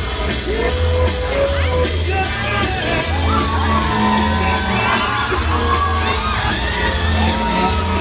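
Loud fairground ride music with a heavy, steady bass beat, over riders shouting and whooping on a KMG Tropical Trip swing ride during its finale.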